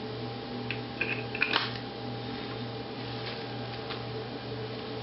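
Steady low hum of room noise, with a short cluster of light clicks and taps between about one and two seconds in.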